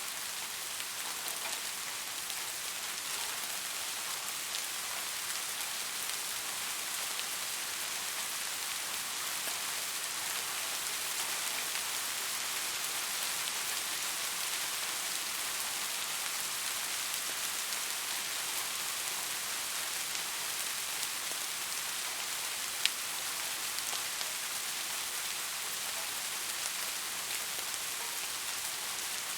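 Steady summer rain falling, an even hiss of many drops with faint individual drop ticks and one sharper drip about three-quarters of the way through.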